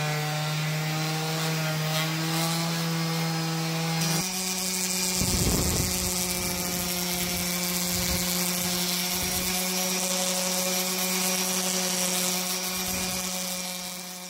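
Random orbital sander running steadily against treated pine, sanding a glued, sawdust-filled miter joint flush. Its hum steps slightly higher about four seconds in, and a rougher rubbing sound comes and goes as the pad is pressed against the edge of the frame.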